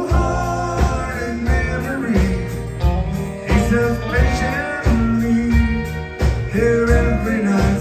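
A live country band playing an instrumental passage with fiddle, acoustic guitar, bass and drums, over a steady beat.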